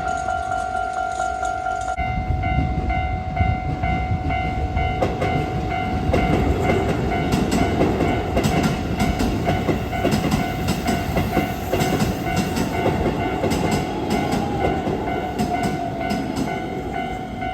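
Japanese level-crossing warning bell ringing steadily while an electric commuter train passes over the crossing. Starting about two seconds in, the train rumbles and its wheels click over the rail joints.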